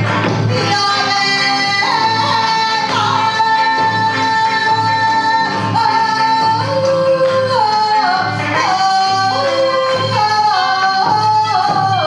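Kawachi ondo singing: a woman sings into a microphone in long, held lines that step from note to note, over accompaniment with a steady low beat.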